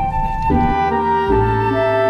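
Background music: a melody on a flute-like instrument over sustained chords and a bass line.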